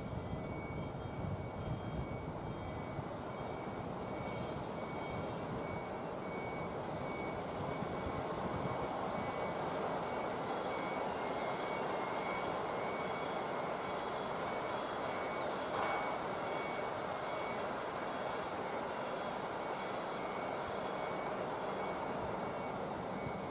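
Tobu 8000-series electric train cars rolling past on the rails: a steady wheel-on-rail rumble and hiss with a faint on-off high tone. The 8160F set is out of service with a fault and is being moved dead, coupled to an 800-series set, for scrapping.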